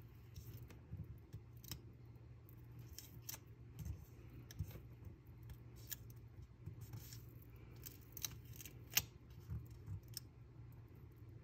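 Faint, irregular clicks and light rustles of fingertips and fingernails pressing and shifting a paper sticker on a planner page, over a low steady hum.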